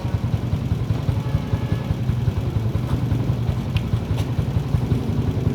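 Yamaha Mio i 125 scooter's single-cylinder engine idling steadily, with a fast, even low pulse and a couple of faint clicks.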